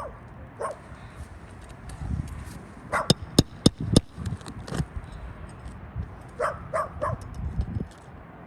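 A dog barking in short, sharp yips, several times. About three seconds in comes a quick run of about five sharp knocks, the loudest sounds here.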